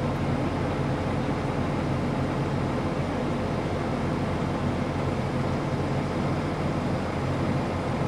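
Tractor engine and chaser bin unloading auger running steadily, heard from inside the tractor cab as barley is augered into a full field bin: a constant low hum over an even rushing noise.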